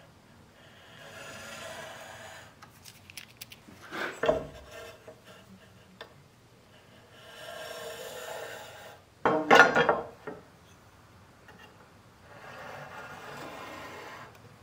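Pencil scratching along a steel rule as layout lines are drawn on mahogany boards: three stretches of scratching of about two seconds each. In between come a few sharp knocks and rattles from the metal square and rule being handled, one about four seconds in and a louder one near ten seconds.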